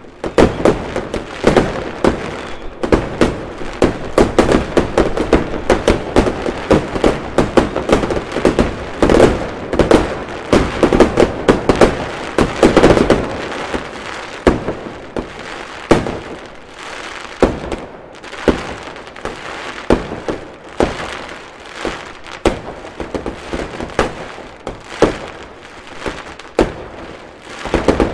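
Many fireworks going off at once: rapid overlapping bangs, pops and crackles. They come thick and fast for the first half, then thin out to separate bangs about a second apart over a steady crackle.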